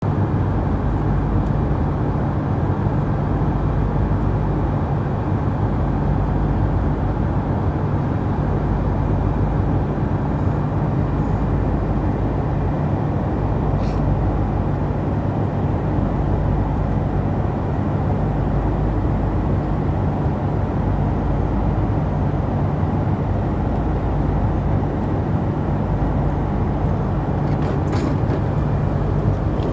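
Steady cabin noise of an airliner: a constant low rumble and hum of engines and airflow, with two brief clicks, one about halfway through and one near the end.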